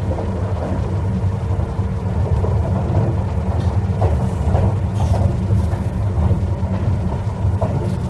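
A train running: a steady low rumble with occasional faint clicks and rattles.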